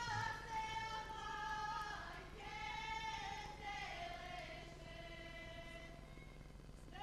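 A choir of women singing a Serbian folk song of the Vranje region in long held notes, the melody sliding down to a lower held note about four seconds in.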